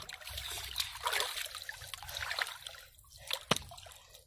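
Hands splashing and sloshing in shallow muddy water while feeling along the bottom, with scattered small splashes at irregular intervals and a sharper splash about three and a half seconds in.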